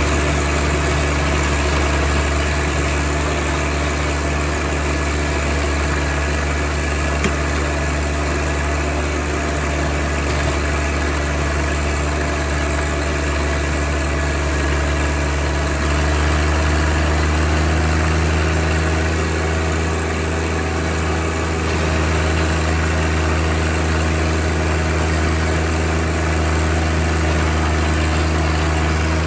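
John Deere 1025R compact tractor's three-cylinder diesel engine running steadily while its front blade pushes snow, its note shifting slightly about halfway through.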